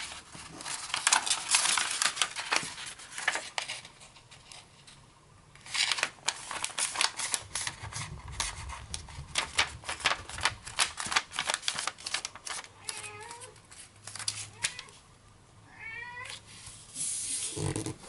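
A sheet of origami paper rustling and crinkling as it is handled and folded corner to corner, then pressed flat. A cat meows twice in the background, in the second half.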